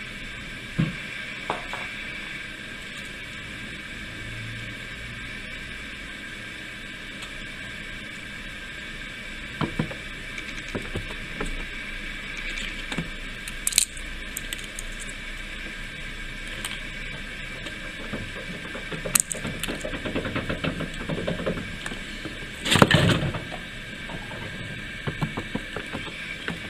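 Red squirrel eating sunflower seeds from a bowl: scattered sharp clicks and crunches of shells and seeds rattling as it handles them, busiest and loudest late on, over a steady background hiss.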